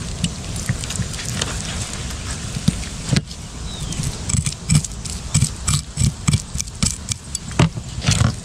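A knife working on a freshly caught snook as it is cleaned: irregular scraping and clicking strokes, which thicken into a quick run from about halfway in, over a low steady rumble.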